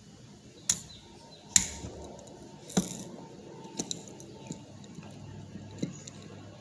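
Small metal clicks and clinks of split-ring pliers and a treble hook against a lure's split ring as it is pried open. There are about six sharp clicks at uneven gaps, the loudest about a second and a half in.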